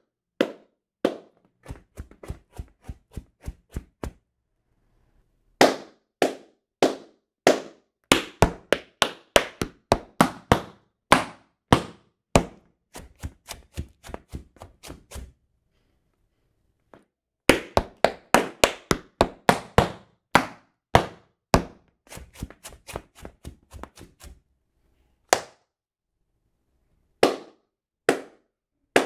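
Metal tap-shoe taps striking a wooden floor in quick rhythmic phrases of toe shunts. The phrases are broken by pauses of a second or two.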